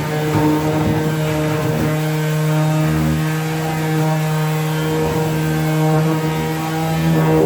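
Electric sander running steadily: a constant motor hum with overtones over a sanding hiss.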